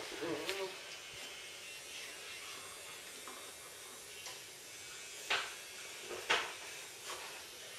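Czechoslovakian wolfdog puppies with their mother on a tiled floor: a short puppy whimper right at the start, then quiet room sound with faint scattered clicks and taps, two louder sharp clicks about five and six seconds in.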